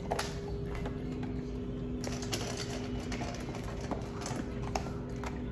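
Aussiedoodle puppy eating dry kibble from a stainless steel bowl: irregular crunching and clicks of kibble against the metal.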